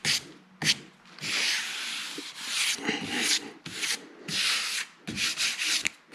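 Hands rubbing along a drywall corner bead that has been sprayed with adhesive, pressing it down onto the corner in a series of short rubbing strokes, each up to about a second long.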